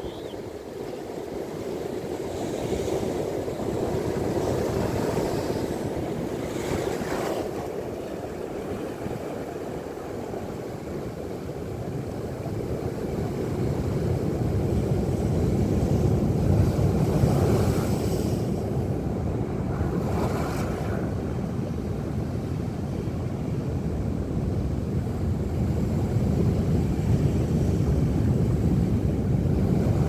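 Atlantic surf breaking over rocks: a continuous rush of waves that swells and eases, with several sharper crashes of spray and loudest a little past the middle.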